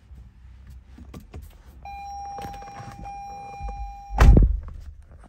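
A 2022 Toyota RAV4's 2.5-litre four-cylinder engine being started: a steady tone for about two seconds, then a short, loud low rumble about four seconds in as the engine cranks and fires.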